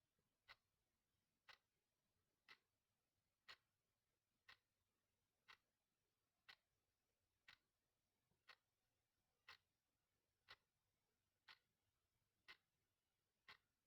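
Clock ticking faintly and evenly, one tick each second.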